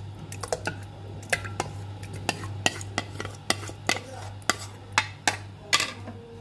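Spoon clinking and scraping against a plate and the rim of a glass blender jar as yogurt is scraped into the jar: a run of light, irregular clicks, two or three a second, over a steady low hum.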